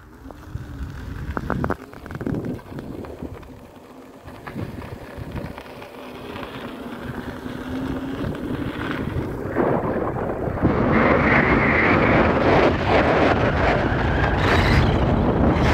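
Wind rushing over the microphone of a rider on an Inmotion V11 electric unicycle. It grows steadily louder as the unicycle picks up speed and is loudest over the last few seconds.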